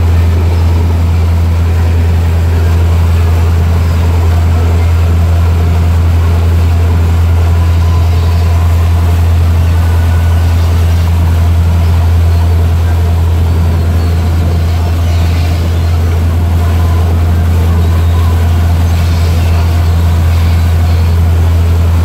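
Sightseeing cruise boat's engine running with a loud, steady low drone, over the rush of its churning wake.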